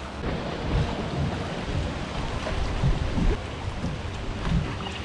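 Wind buffeting the microphone, with water lapping and splashing against a boat hull: an uneven low rumble over a steady hiss.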